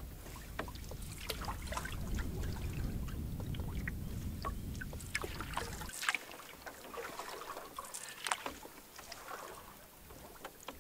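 Canoe paddling: a wooden paddle dipping and pulling through the water, with scattered drips and small splashes. A low rumble underlies the first six seconds and cuts off suddenly.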